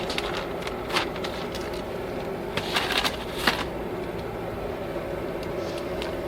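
Small plastic parts bags being handled, a few short crinkles and clicks about a second in and again around the middle, over a steady low hum.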